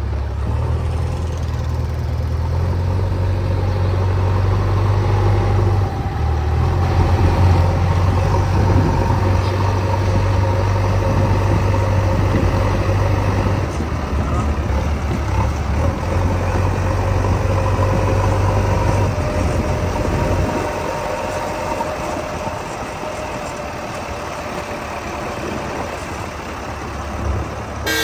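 JCB 3DX backhoe loader's diesel engine running as the machine drives with a loaded front bucket, a steady low hum that drops in level about two-thirds of the way through.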